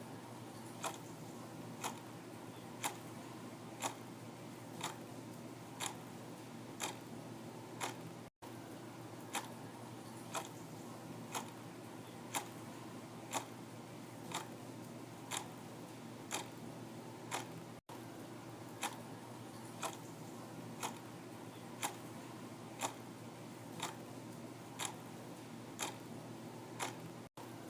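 Clock ticking steadily, about one tick a second, over a faint low hum. The sound cuts out for an instant three times.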